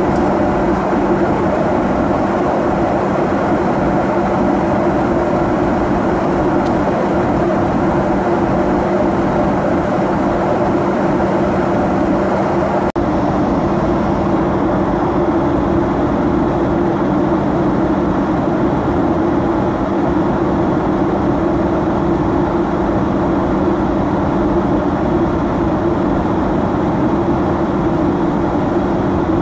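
Cabin noise of a Boeing 737-800 in flight: a steady roar of engines and airflow with a low, even hum beneath it. The sound drops out for a split second about halfway through.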